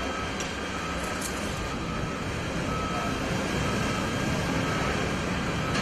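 Fire trucks' engines and pumps running steadily, with a high beep repeating about once a second over the din.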